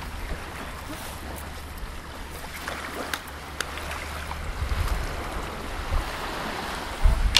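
Small waves lapping on a sandy beach, with wind rumbling on the microphone and gusting harder near the end.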